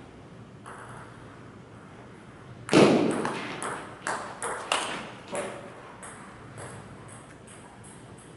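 Table tennis rally: a loud thud about three seconds in, then a quick run of sharp ball clicks off the paddles and table, about half a dozen at roughly half-second spacing, dying away after a few seconds.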